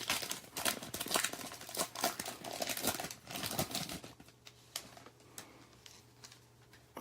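Wrapper of a football card pack crinkling and tearing as it is opened by hand: busy, dense crackling for about four seconds, then only a few faint crackles.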